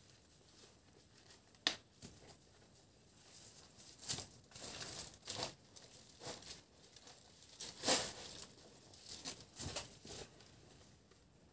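Dry banana leaves crackling and rustling in irregular bursts under footsteps and handling, with a sharp click about two seconds in and the loudest burst about eight seconds in.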